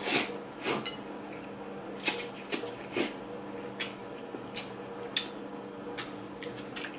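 A person slurping and chewing instant noodles eaten with chopsticks: about ten short, irregularly spaced slurps and mouth sounds, with quieter chewing between.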